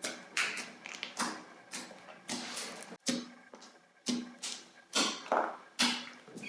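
Hands squishing and poking slime: a string of short, sharp pops, roughly two a second, each trailing off briefly.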